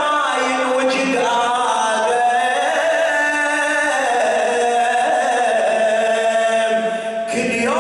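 An Iraqi radood (Shia lament reciter) chanting a Muharram elegy poem into a microphone, in long held, wavering notes that glide slowly in pitch. There is a short break near the end, and then the next phrase rises in.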